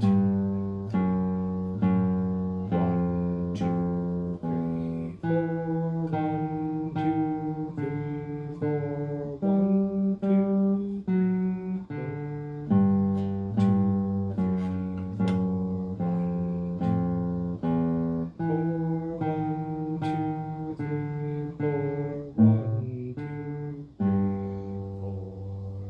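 Classical guitar played fingerstyle: a slow line of single plucked notes, mostly low, each ringing into the next. It ends on a held note left to ring.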